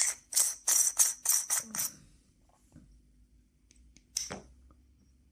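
Short, bright metallic rattles and clinks from handling the parts of a disassembled tactical flashlight: a quick run of six or seven in the first two seconds, then one more about four seconds in.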